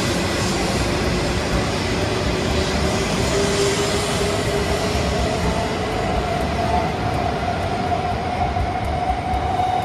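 E2 series Shinkansen pulling away from the platform and accelerating past, its traction motors giving a whine that climbs slowly in pitch over a steady rushing rolling noise.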